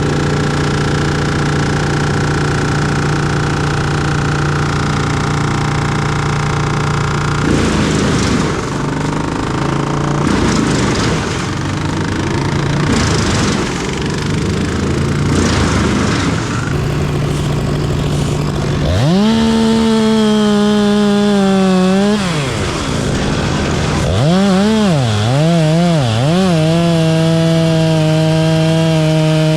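A steady engine drone, then a stretch of uneven noise. About two-thirds in, a chainsaw revs sharply up to full throttle, drops and surges back several times, then holds at a high, steady pitch.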